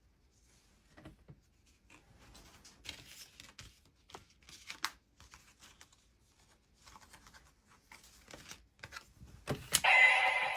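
Small plastic clicks and rustling as cards and parts of a Kamen Rider Legend toy transformation belt are handled. Near the end comes a sharp click, and the belt's electronic sound effect starts playing loudly.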